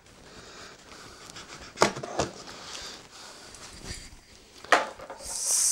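A large cardboard monitor box being worked open by hand: low rustling with three sharp clicks, two close together about two seconds in and one near the end.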